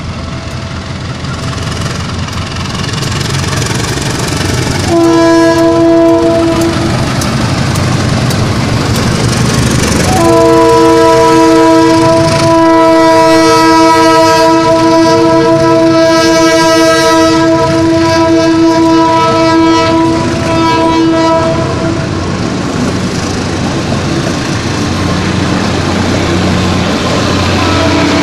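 Diesel locomotive horn sounding a chord of several steady notes: a short blast about five seconds in, then a long blast of about eleven seconds with a brief dip partway through. Under and after it, the locomotive's diesel engine and the rumble of the hauled train's wheels on the rails.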